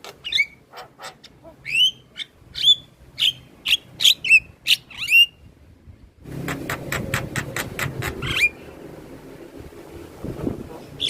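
Javan myna singing: a run of sharp clicks and short, downward-curving whistles. About six seconds in comes a noisier stretch of rapid clicking over a low hum, which fades to quieter background near the end.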